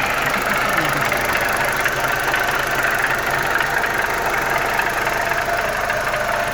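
Audi 1.8 turbo inline-four engine idling steadily with a rapid ticking clatter. The owner doesn't know the cause: he has heard it blamed on the oil, and a PCV part on the engine has had a fault.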